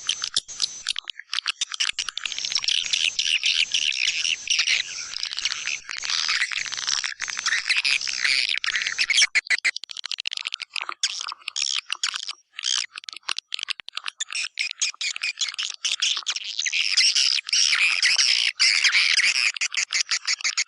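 Recorded calls of white-nest swiftlets: a dense, rapid chittering of many chirps, thinning out midway and crowding back near the end. It is a swiftlet lure call, played at swiftlet houses to draw the birds in to roost and nest.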